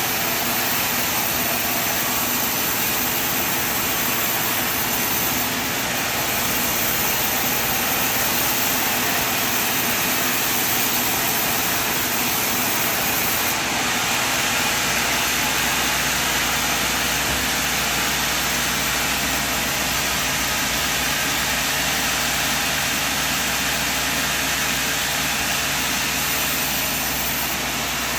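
Sawmill machine running steadily with a loud, even machine noise. About halfway through, a deeper hum joins in at the low end.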